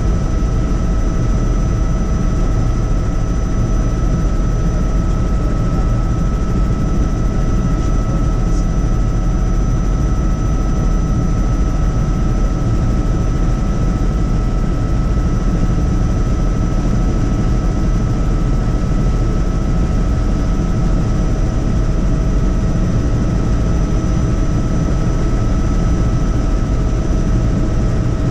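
Helicopter in flight: a steady, unchanging rotor and engine drone with a constant high whine over it.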